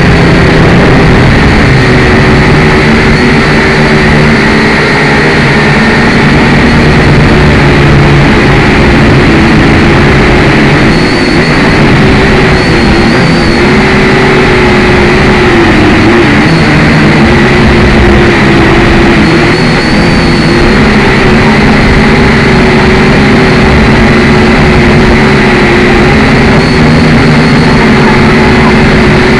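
Syma X5C quadcopter's small motors and propellers buzzing steadily in flight, the pitch wavering slightly up and down as the drone adjusts its thrust.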